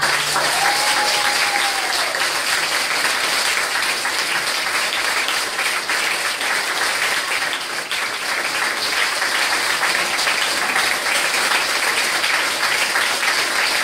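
Audience applauding steadily at the end of a piece of music.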